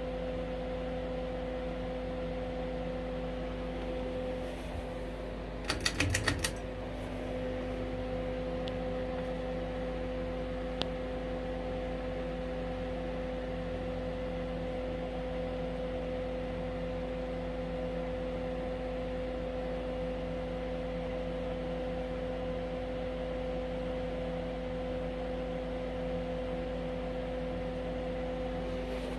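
Harbor Breeze Builders Best 52-inch ceiling fan running steadily, its motor hum mixed with the steady drone of a space heater. A short burst of clicking comes about six seconds in.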